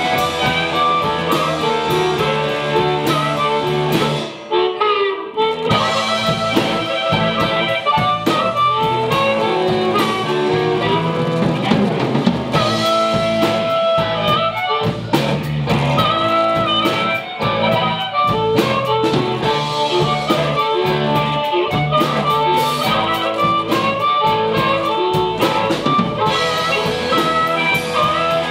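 Live electric blues band playing an instrumental passage: electric guitars and drum kit under a harmonica playing lead with held, bending notes. The band drops out briefly about four and a half seconds in, then comes back in.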